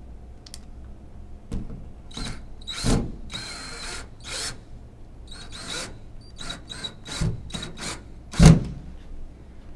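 Yellow DeWalt cordless drill run in short bursts against a drywall wall over a wood stud, its motor whining with each squeeze of the trigger. There is a louder knock near the end.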